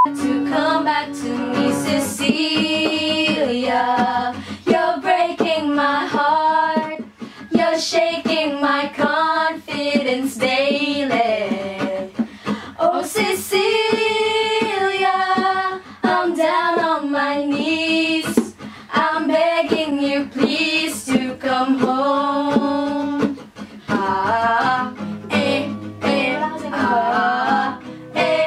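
Female voices singing a song together, accompanied by a strummed ukulele and acoustic guitar.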